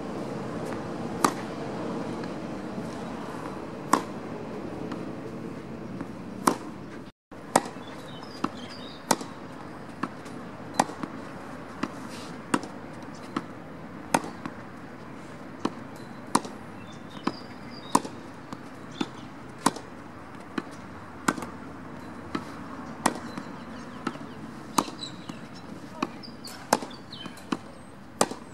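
Tennis racket strings striking the ball in a rally, a sharp pop each time. The pops come every couple of seconds during baseline groundstrokes, then, after a brief break about seven seconds in, quicker and closer together, roughly one a second, as volleys are traded at the net.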